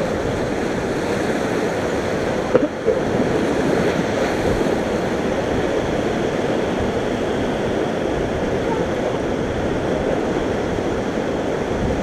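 Whitewater river rapids rushing and churning steadily around a raft, with a single short knock about two and a half seconds in.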